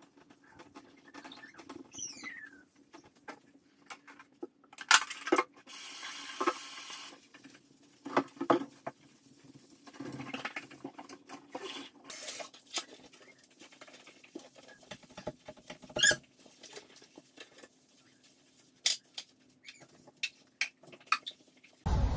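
Toiletries being handled on a bathroom counter: scattered light clicks and taps of bottles, caps and containers, with a brief hiss about six seconds in and a faint steady hum underneath.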